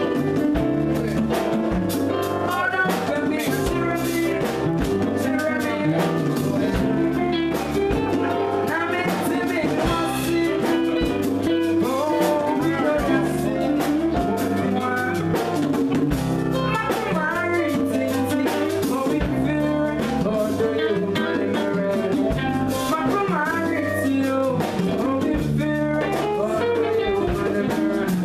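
Live highlife band playing: a man singing into a microphone over electric guitar and drum kit, with a steady repeating low groove under the melody.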